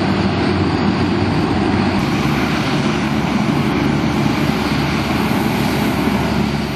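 Antonov An-12's four Ivchenko AI-20 turboprop engines running loudly, a steady propeller hum with low tones over a broad engine noise.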